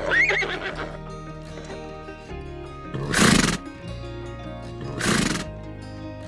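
Horse whinnying briefly at the start, a short call that rises and falls in pitch, then two loud rushing bursts about two seconds apart, the loudest sounds here. Background music with sustained notes runs underneath.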